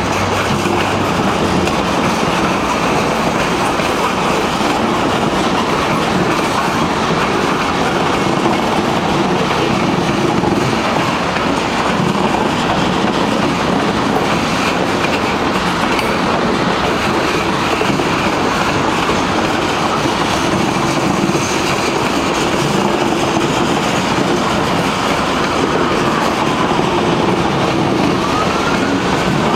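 Freight train cars rolling past close by, a loud, steady rumble and rattle of steel wheels on the rails. Near the end a siren starts to wail, rising and falling in pitch.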